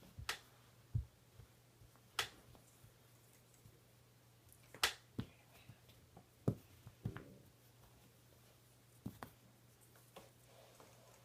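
German shepherd puppy at play with a tug toy: about a dozen sharp clicks and light knocks at irregular intervals, over a faint steady hum.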